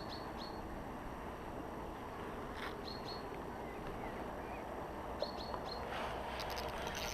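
Small bird chirping in short high notes, two or three at a time, three times over, above a steady outdoor background hiss.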